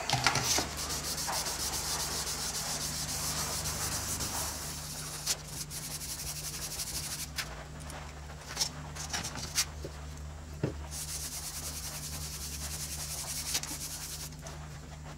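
A linen-faced French-polishing rubber charged with shellac and pumice, rubbed briskly over a veneered wood panel with moderate pressure: a continuous scratchy rubbing as the pumice cuts back the surface and fills the wood grain. A few brief clicks stand out in the middle.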